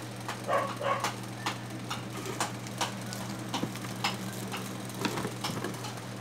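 Irregular clicks, taps and short crinkles from hands working at the packaging of a new pneumatic door closer, trying to get it open. A steady low hum runs underneath.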